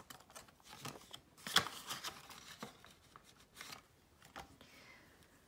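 Paper banknotes being handled and slid into a clear plastic cash envelope in a ring binder: soft, scattered rustling and crinkling of paper and plastic, with a sharper rustle about a second and a half in.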